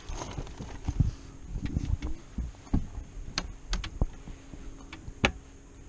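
Irregular sharp knocks and clicks, about eight of them at uneven intervals, from handling on a small boat, over a faint steady background.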